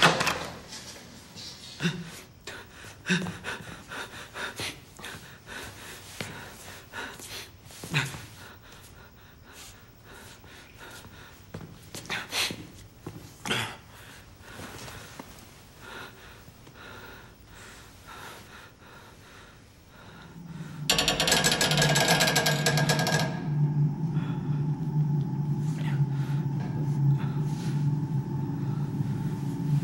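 Soft rustling, small knocks and breathing as a man searches over a bed, then about 21 seconds in a sudden loud swell of noise that settles into a steady low droning tone with a faint higher held note: a horror film music cue.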